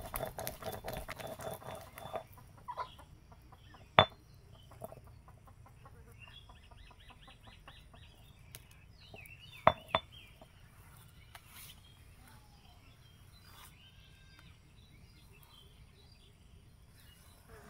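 Stone roller scraping back and forth over wet idli batter on a flat stone grinding slab for the first couple of seconds, then a quieter stretch of hens clucking with a few sharp knocks.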